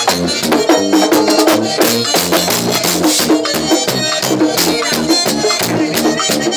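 Live merengue típico band playing: a button accordion leads over a tambora drum and electric bass, with a fast, steady percussion beat.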